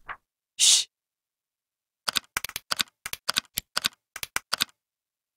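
Sound effects for an animated title card: a short whoosh about half a second in, then, from about two seconds, a quick run of about a dozen sharp typing clicks, some four or five a second, stopping near the end.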